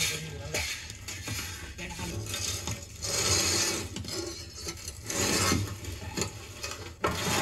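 Scraping and clattering of poles and a baked clay lump against a large metal pan, coming in several rough bursts.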